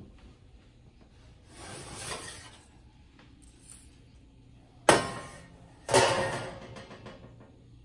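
Metal baking sheet sliding out of the oven, then set down on the gas stove's metal grates with two sharp metallic clanks about a second apart, each ringing briefly.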